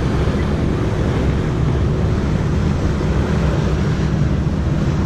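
Steady wind buffeting the microphone on a sailing yacht under way, with water rushing past the hull.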